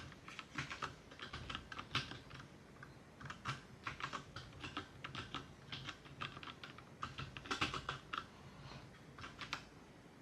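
Keys being typed and pressed on a James Donkey 619 mechanical keyboard, with sharp clacks coming in quick irregular bursts.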